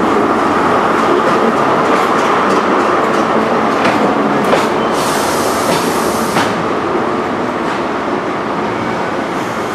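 Great Western Railway HST's Mark 3 coaches rolling slowly past, wheels clicking over rail joints, over a steady rumble. A brief high hiss comes about five seconds in and stops a second and a half later.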